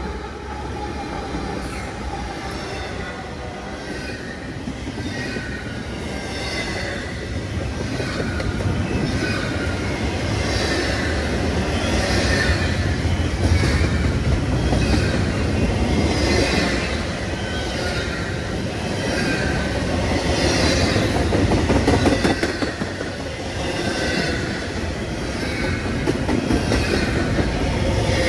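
A double-stack container freight train rolling past close by. Its wheels on the rails give a steady heavy rumble, with a high hissing squeal that swells and fades about once a second as the cars go by.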